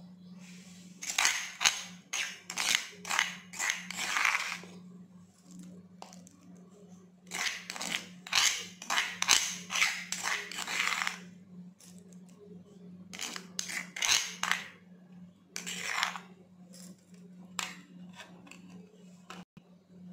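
Steel spoon scraping ground okra chutney out of a stone mortar, in several runs of quick strokes. A steady low hum runs beneath.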